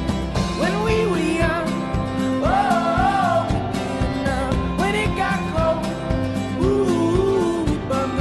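Background music: a country-style song, a singer's voice over strummed guitar.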